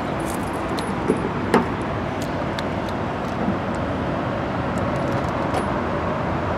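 Steady traffic noise from a nearby freeway, with a few light metal clinks from a dog's collar tags.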